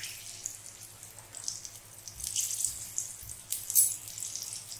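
Green chillies and asafoetida frying in hot ghee in a small steel tadka pan: a steady crackling sizzle full of small spits and pops, with one loud sharp crack near the end.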